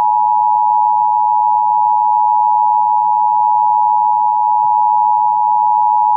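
Emergency Alert System attention signal: a single steady, unbroken electronic tone near 1 kHz. It is the alert tone that opens a Required Monthly Test.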